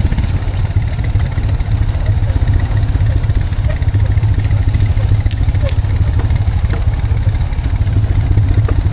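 Honda Foreman 520 ATV's single-cylinder four-stroke engine running steadily, with a few sharp clicks about halfway through.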